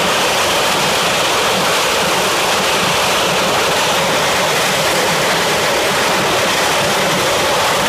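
Rolls-Royce Derwent 8 centrifugal-flow turbojet running, a loud, steady, even rush of jet noise.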